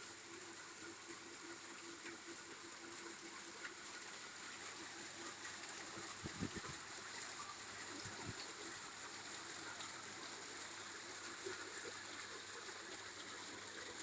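Water steadily trickling and splashing from a small decorative artificial waterfall, with a couple of low thuds about six and eight seconds in.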